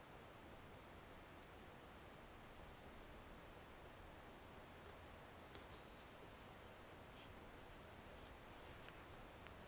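Crickets trilling: a steady, unbroken high-pitched insect chorus, with a few faint short high ticks about one and a half seconds in, around the middle, and near the end.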